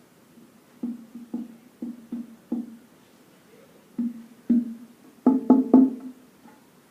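A drum struck about a dozen times with short ringing beats: softer, spaced strikes first, then a quick run of four louder strikes a little past five seconds in.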